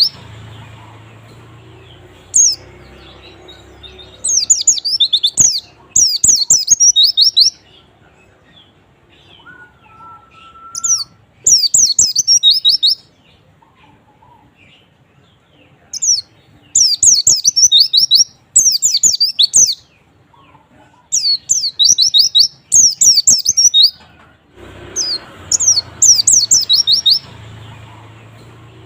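White-eye (pleci) song used as a lure recording to get other white-eyes singing. Repeated bursts of rapid, high twittering notes, a second or two each, with short pauses between.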